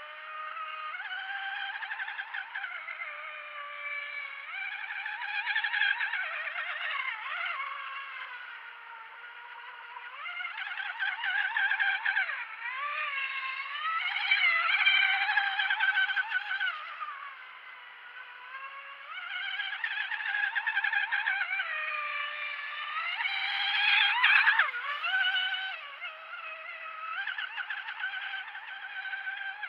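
Brushless electric motor of an RC outrigger race boat (HK2218 2500KV on a 6S LiPo, driving a 29er aluminium propeller) whining at speed. The pitch rises and falls with throttle and turns, and the sound swells and fades as the boat passes nearer and farther, loudest twice.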